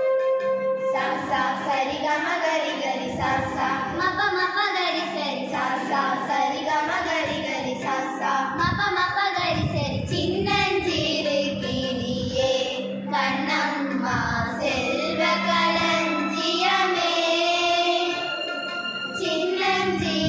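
A group of schoolgirls singing a Tamil song together, starting about a second in after a few held instrumental notes, over a steady low tone.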